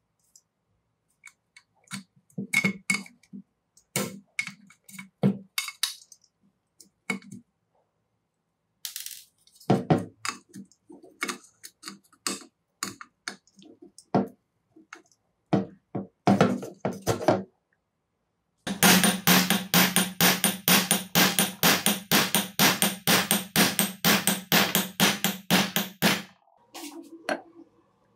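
Side cutters clicking and scraping against the demolition hammer's metal housing in scattered small knocks. Then a long run of rapid, even hammer taps, about five a second, on a steel punch set on a gear shaft, driving it out of the gear housing.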